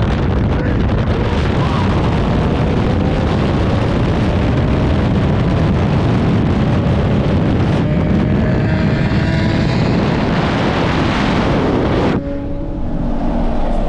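Cars at full throttle in a highway roll race, heard under heavy wind rush. Engine pitch climbs steadily, breaks about eight seconds in for a gearshift and climbs again. The noise drops off sharply about twelve seconds in as the run ends.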